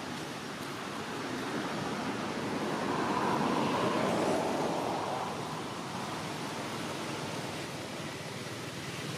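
Steady rushing background noise, with a passing vehicle that swells in about two seconds in, is loudest around four seconds, and fades back by about six seconds.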